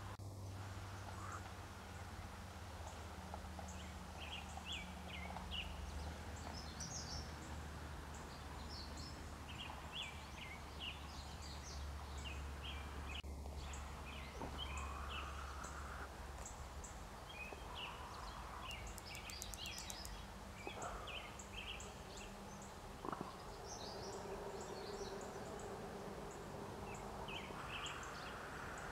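Outdoor ambience: birds chirping with many short calls throughout, over a low steady hum.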